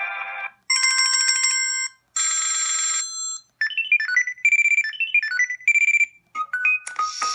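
Samsung Convoy 2 phone playing its preloaded ringtones one after another, each briefly, with short silences between: one cuts off at the start, then two chiming passages of steady tones, a quick melody of short beeping notes, and another tune starting near the end.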